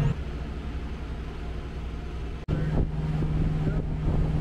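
Steady low mechanical hum, broken by an abrupt cut about two and a half seconds in, after which a steadier, slightly higher pitched hum carries on.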